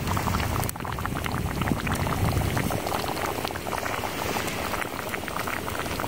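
Thick turkey chili bubbling at a boil in a cast-iron skillet set in campfire coals, with many small irregular pops.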